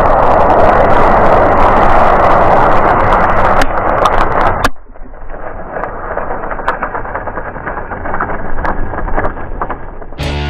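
A large heap of matches burning all at once as a fireball: a loud, steady rush of flame for about four and a half seconds, then a sudden drop to a quieter fire with many crackles and pops.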